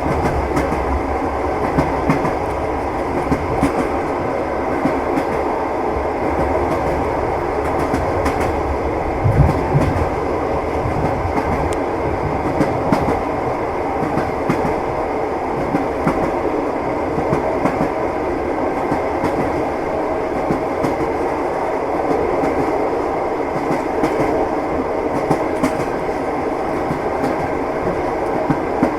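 Moving train: a steady rumble of wheels on rails, with the clickety-clack of the wheels knocking over rail joints and a louder knock about nine seconds in.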